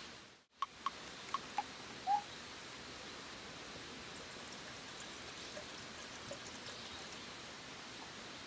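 Water poured from a plastic bottle into a camping kettle, a thin, steady trickle. A few light clicks come in the first second and a half.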